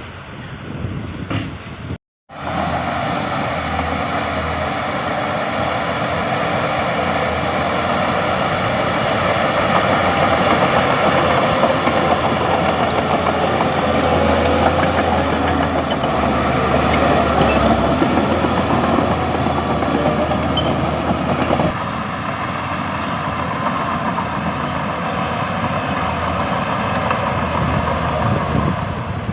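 Heavy diesel earthmoving machinery running steadily at work, its engine swelling louder through the middle. The sound cuts out for a split second about two seconds in and drops abruptly to a lower level about three-quarters of the way through.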